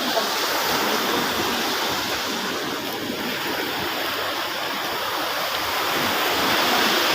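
Sea surf washing steadily onto the beach, swelling slightly louder late on.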